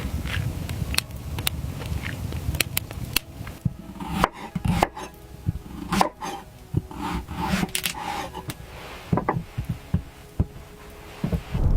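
Irregular series of short clicks and knocks, like objects being handled, over a low rumble in the first few seconds that then fades out.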